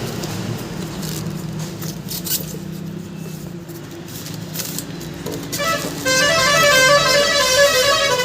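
A steady low hum, then about six seconds in a vehicle's musical horn starts up loudly, playing a tune of short, rapid pitched notes.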